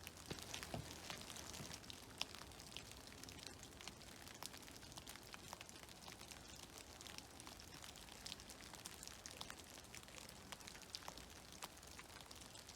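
Meltwater dripping from snow-laden trees: many small, irregular drops pattering faintly, a few louder than the rest, over a faint steady hiss.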